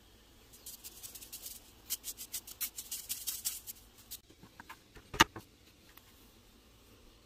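Salt shaken from a salt bottle into a pot of boiling water: a fast, dry rattling for about three seconds. A few scattered ticks follow, then a single sharp knock about five seconds in, the loudest sound.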